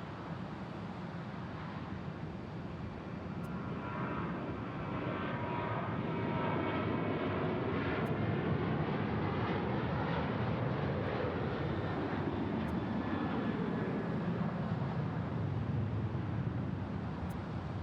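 Jet airliner passing the airport spotting position: the engine noise builds from about three seconds in, with a whine that falls in pitch as it goes by, then settles into a low rumble.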